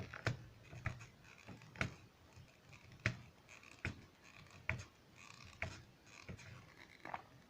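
Light clicks and taps of a small plastic memory-card package being handled, about one a second at irregular intervals.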